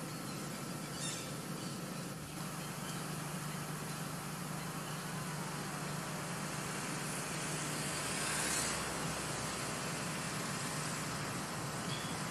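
Steady outdoor background noise with a low hum, dipping briefly about two seconds in and swelling gently about eight seconds in.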